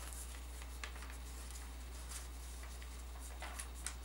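Sheet of paper rustling and crinkling under the fingers as it is folded and creased, a few faint scattered crackles, over a steady low hum.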